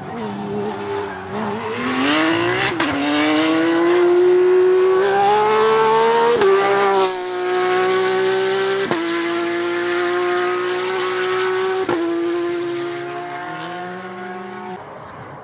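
Rally car engine under hard acceleration, its pitch climbing and then dropping at each gear change, with about four sharp cracks at the shifts. The sound fades near the end as the car moves away.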